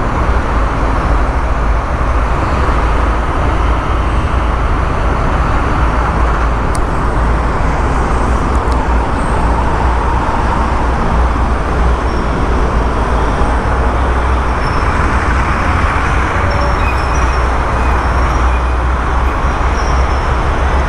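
Steady vehicle and road noise, mostly a deep, even rumble, from moving with a heavy-haul truck and lowbed trailer convoy through traffic.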